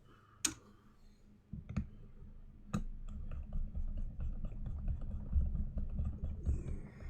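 Hands working power wires into an amplifier's power plug: three separate sharp clicks, then a run of small quick clicks and rattling handling noise from about three seconds in.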